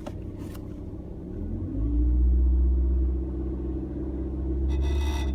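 Proton Iriz engine running, heard from inside the cabin, its pitch rising and its rumble growing louder about a second and a half in. Near the end there is a brief buzzing rattle, the kind of noise from inside the dashboard that two service centres could not trace.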